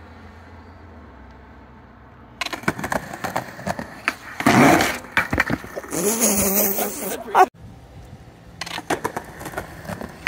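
Skateboard wheels rolling on a concrete sidewalk, with the board clacking as a kickflip lands and the wheels rattling over a metal grate plate during a manual. There are loud knocks about two seconds in and again near the middle, and the sound cuts off abruptly before more rolling near the end.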